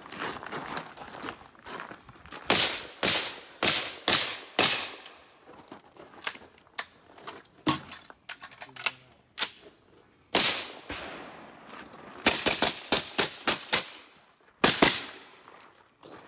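AR-style carbine firing single semi-automatic shots, each with a short echo. The shots come in uneven strings, some as quick pairs and some spaced by pauses of a second or more, with the densest run of shots near the end.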